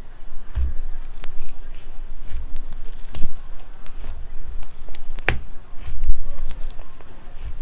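Slime being squeezed and pressed by hand, giving irregular wet clicks, pops and soft low squelches, with sharper pops about three and five seconds in, over a steady high-pitched whine.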